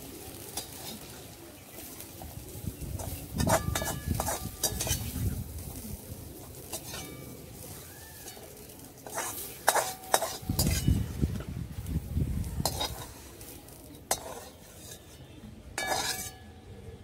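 A metal slotted spoon scrapes and clinks against a metal kadai and a metal bowl as jackfruit pieces frying in mustard oil are stirred and lifted out, under a faint sizzle. The clinks ring briefly and come in clusters, with longer scraping about three seconds in and again about ten seconds in.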